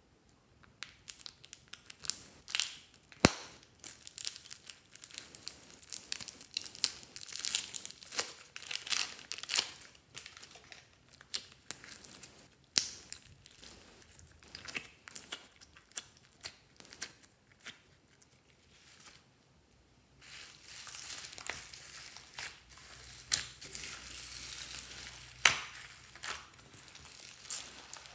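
Crinkling and crackling of a clear plastic piping bag filled with slime as hands squeeze and knead it, with a sharp click a few seconds in. After a short pause about two-thirds of the way through, the crackling becomes dense and continuous.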